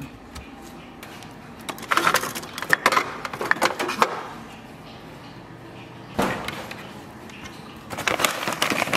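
Household handling noise: jars and food containers being taken out of a refrigerator and knocked against shelves, then a pantry cupboard and a snack bag being handled near the end. It comes in a few separate bursts of clatter and knocks, with a sharp knock about six seconds in.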